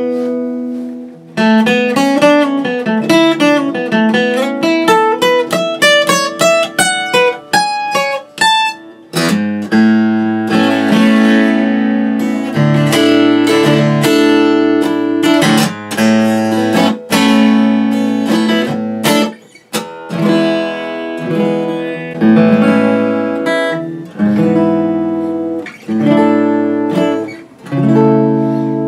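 Martin D-41 dreadnought acoustic guitar being play-tested after a neck reset, refret and re-glued bridge: picked single-note runs for the first nine seconds or so, then strummed chords with sharp strokes.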